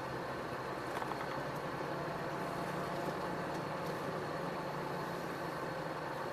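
Iveco Stralis truck's engine running with a steady low hum, heard from inside the cab as the truck drives slowly.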